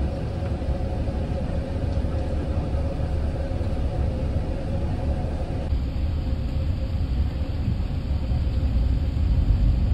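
Steady low rumble of cabin noise inside an Airbus A380 airliner during descent: engine and airflow noise heard from an economy seat. It grows slightly louder near the end.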